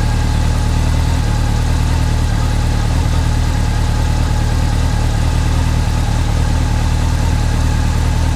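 Motorcycle engine idling steadily with a rattling, clattering noise from the timing chain, the sign of a failing cam chain tensioner that no longer keeps the chain taut.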